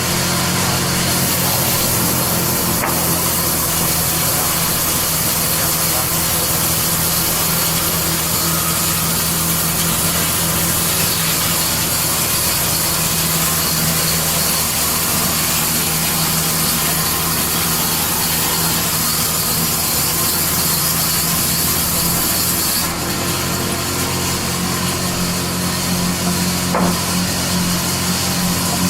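Power saw cutting lengthwise through red hardwood: a steady motor hum under a loud high hiss of the cut, which eases off about 23 seconds in while the saw keeps running.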